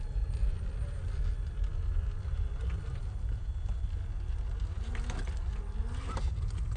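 Steady low rumble of wind on the microphone. About five to six seconds in come a few clicks and knocks as a Traxxas TRX-4 Defender RC crawler tips over on the rock.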